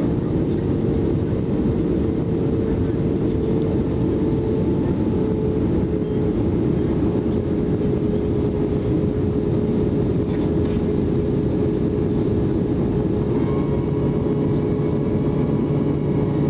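Steady cabin noise of an Airbus A320 on approach: engines and airflow, with a steady hum running underneath. About thirteen seconds in, a new steady whine with several tones sets in as the wing flaps extend.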